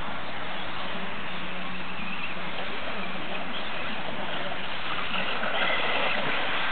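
Electric 4WD RC racing buggies with brushless motors running on an off-road track: a steady mix of motor whine and tyre noise that grows louder near the end as cars come closer.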